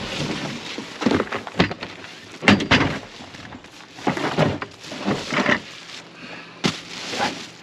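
A large cardboard box being pulled apart and a heavy plastic-wrapped tent bundle dragged out of it onto a pickup tailgate: cardboard scraping and plastic crinkling, broken by several sharp knocks and thumps.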